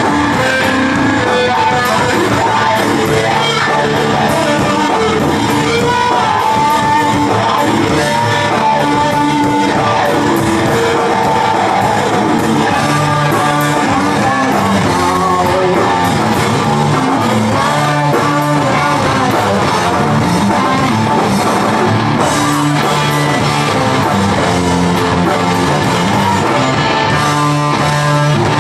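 Live rock band playing loudly: electric guitars and drum kit, with a steady driving beat.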